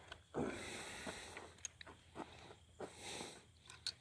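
Faint handling noise as a shotgun is loaded: a few soft scattered clicks with brief rustling hiss between them.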